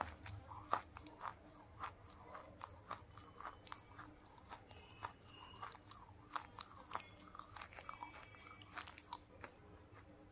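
Close-up chewing of a crunchy red dry bar held right up to a lavalier microphone: a steady run of small, crisp crunches, about two a second.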